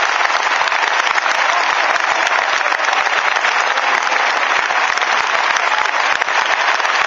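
A full football stadium crowd applauding, a steady dense roar of clapping that does not let up: an ovation for a player leaving the pitch.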